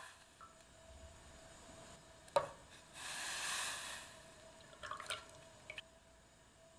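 Kitchen food-preparation handling sounds: a sharp knock about two and a half seconds in, then about a second of hissing noise, then a few light clicks.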